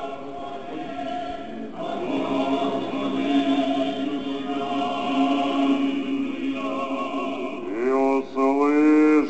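Orthodox church choir singing a slow liturgical chant, holding long sustained chords. Near the end the pitch rises and the singing grows louder.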